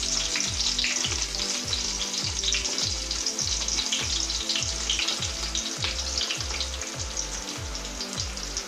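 Sliced onions frying in hot oil with cumin and mustard seeds: a steady sizzle with many small crackles. A low, regular pulsing hum of about two beats a second runs underneath.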